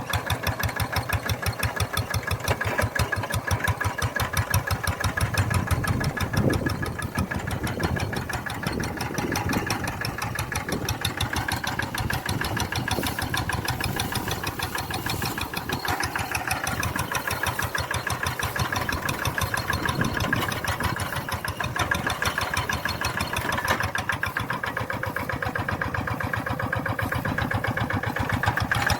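Tractor engine running steadily with a fast, even firing beat.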